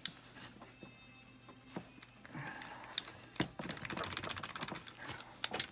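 Socket ratchet clicking as a water pump bolt is tightened, with a few sharp metal clicks; a quick run of ratchet clicks comes in the second half.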